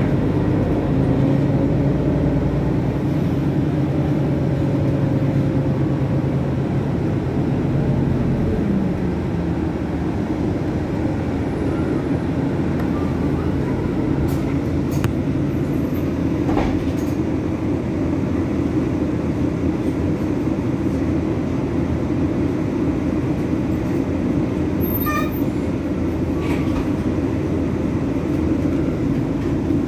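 City bus in motion, heard from inside the passenger cabin: a steady engine and drivetrain hum over road rumble. A tone in the hum drops away about nine seconds in, and a few light clicks and ticks come later.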